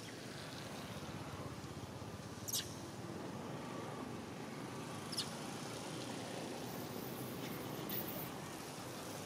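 Young long-tailed macaque giving short, high-pitched squeaking calls, two clear ones about two and a half and five seconds in and a fainter one near the end, over a steady background hiss.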